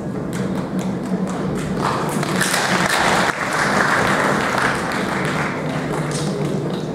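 Audience applauding in a hall. A few separate claps come first, swelling into full applause about two seconds in and thinning out near the end, over a steady low hum.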